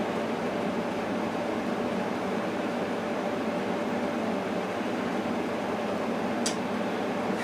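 Steady machine hum and hiss with a faint constant tone, like a fan or air-conditioning unit running, with one short sharp click about six and a half seconds in.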